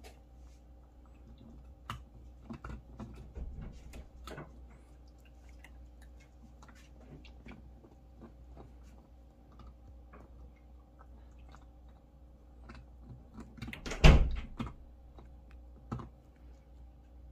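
Small dog chewing food, with irregular soft smacks and clicks. A single louder knock about fourteen seconds in, and a smaller one shortly after.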